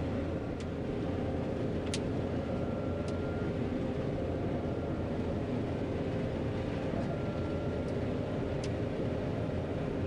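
John Deere 9500 combine running steadily while harvesting soybeans: a continuous engine and machinery drone, with a few brief sharp clicks.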